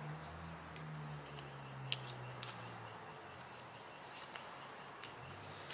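A few faint, sharp ticks from a trading card being handled, over a low hum.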